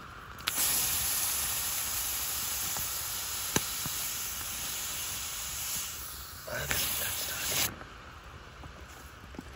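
A red-hot rock plunged into water in a cactus-pad container, hissing and sizzling as it boils the water. The hiss starts suddenly, fades a little, surges again near the end and then cuts off abruptly.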